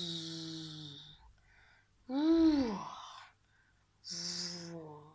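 A person's wordless vocal sounds, like drawn-out hums or sighs: a long breathy falling one ending about a second in, a short rising-and-falling one about two seconds in, and another falling one near the end.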